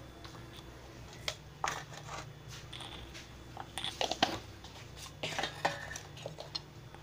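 Cumin seeds and fennel powder sizzling in hot oil in an aluminium pressure cooker, with scattered small crackles and pops, a few of them close together about four seconds in.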